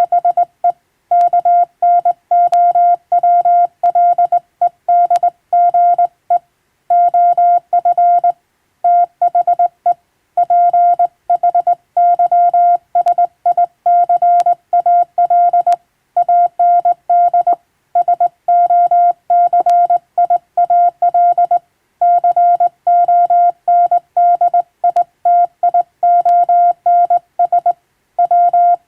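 Morse code sent by hand on a straight key: a single steady beep keyed on and off in dots and dashes, with short gaps between letters and longer ones between words, and an occasional sharp click.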